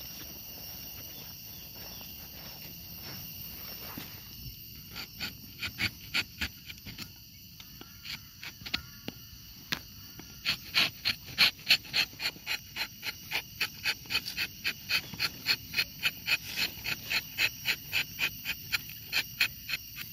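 Rubber-tapping knife shaving bark along a rubber tree's tapping cut in short, quick scraping strokes, about two to three a second. The strokes grow louder and more even from about ten seconds in.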